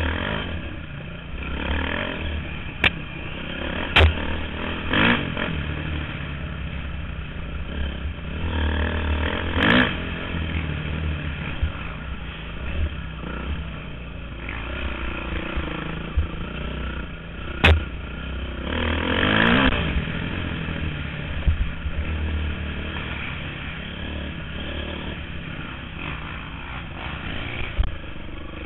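Off-road motorcycle engine ridden hard, heard from the rider's helmet camera. The revs climb and fall as the throttle opens and closes, with sharp clicks a few times.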